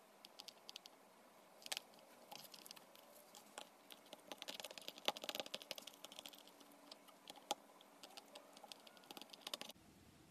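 Faint, sticky clicking and crackling of butter slime being worked by hand, with many small clicks that come thickest about halfway through.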